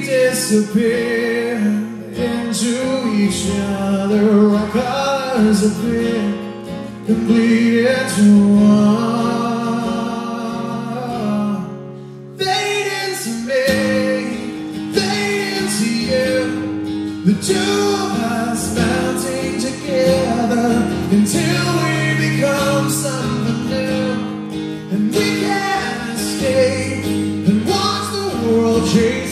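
Live song: a male lead vocal singing over a strummed acoustic guitar, with a short break about twelve seconds in before the music comes back fuller.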